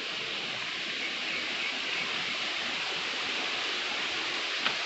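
Waterfall: falling water making a steady, even rush of noise, with one brief click near the end.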